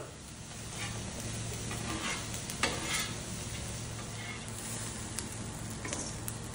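Food sizzling on a hot flat-top griddle in a steady hiss, with a metal spatula scraping and clicking against the griddle surface a few times.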